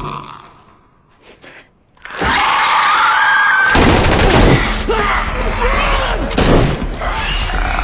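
TV-drama sound of an attack by a zombie-like infected clicker. The opening is near quiet with a few faint clicks. About two seconds in a shrill, rising screech starts, then loud gunshots and snarling as the creature grapples with a man.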